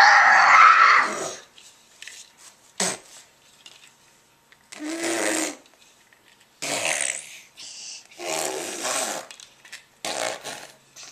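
A child blowing raspberries, lips buzzing wetly: a long, loud one at the start, then four shorter ones a second or two apart, with a sharp click in between.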